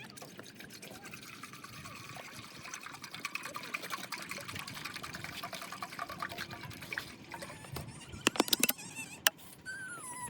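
Liquid being poured into a container in a steady stream for about seven seconds, followed near the end by a few sharp clicks or knocks.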